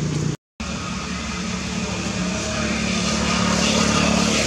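Steady low drone of a running motor engine over a hiss of background noise, broken by a brief silent dropout about half a second in.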